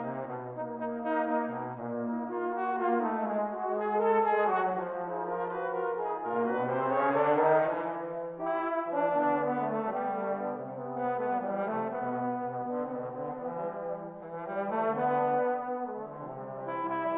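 Tenor horn ensemble playing in several parts: held melody notes over a lower moving bass line.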